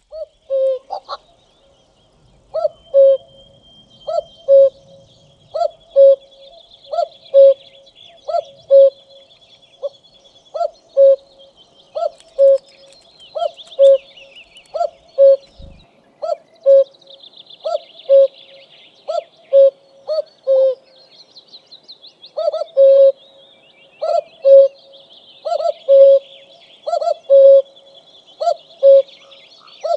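A two-note cuckoo call, a higher note dropping to a lower one, repeated steadily about every one and a half seconds. Under it, nestlings make fainter, high, thin chirps and trills.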